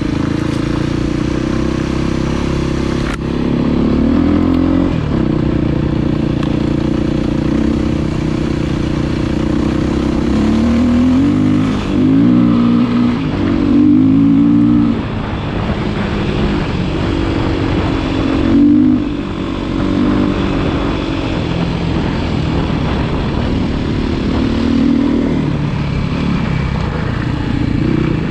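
Vehicle engine running under way, its pitch rising and falling several times as it speeds up and eases off.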